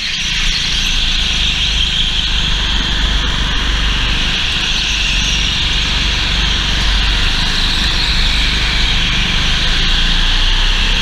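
Onboard sound of an indoor racing go-kart at speed: a steady, loud engine drone with rushing noise around the microphone.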